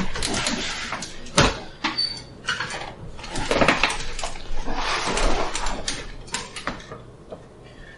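Rustling and shifting of a person's body and clothing on a padded chiropractic treatment table as they turn over to lie face down, with a sharp knock about one and a half seconds in.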